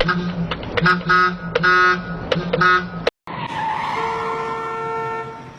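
Short repeated blasts of a multi-tone bus horn (a 'telolet' horn) over a steady engine hum. About three seconds in the sound cuts off abruptly, and vehicle noise with a steady held horn-like tone follows.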